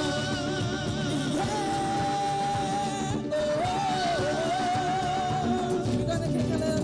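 A woman singing a worship song into a microphone over a live band of bass guitar, keyboards and drums, holding two long notes with vibrato.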